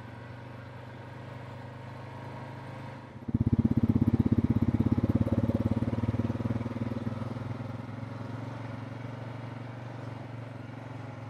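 ATV engines running as the four-wheelers ride along a dirt track. About three seconds in, the sound jumps to a much louder, closer engine with a fast pulsing beat, which slowly fades back down.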